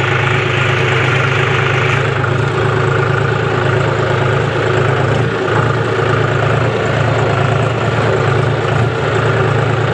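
John Deere tractor's diesel engine running steadily as the tractor drives along a dirt farm track, heard close from the driver's seat.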